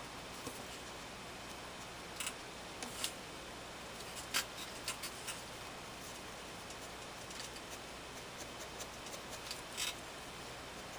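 Pencil scratching on paper in short, irregular strokes while sketching, a few strokes louder than the rest, over a steady hiss.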